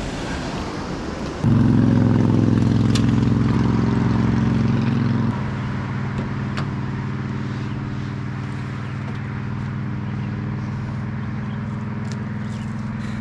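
Rush of river water, then about a second and a half in a pickup truck engine idling steadily; it starts at a higher, louder idle and settles to a lower, quieter idle about four seconds later, with a few light clicks.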